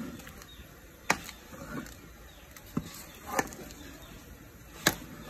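Thickened horse-bone glue being stirred and folded with a metal paddle in an aluminium pot, the sticky paste working with a few sharp knocks of the paddle against the pot. The glue has reduced to a thick paste and is nearly ready to be poured into moulds.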